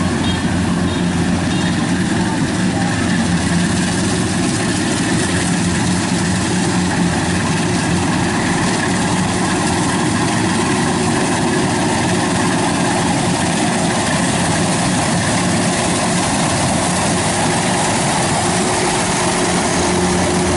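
Kubota DC-93 combine harvester's diesel engine running steadily under load while it harvests rice, its tracks sunk in soft mud.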